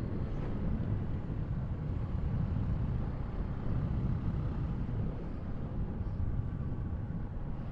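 Motorcycle on the move: steady rush of wind and engine noise on a helmet-mounted camera microphone.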